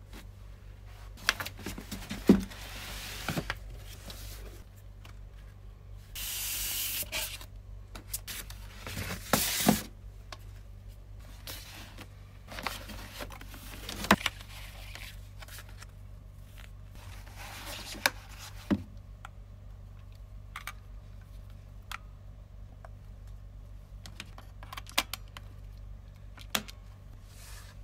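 Handling sounds of a Hasselblad 905 SWC camera being unboxed: cardboard and packaging scraping and rustling, with a drawn-out scraping rasp about six seconds in, and scattered knocks and clicks as the camera and its parts are picked up and set down. A sharp click near the end as the A12 film magazine is fitted to the camera body.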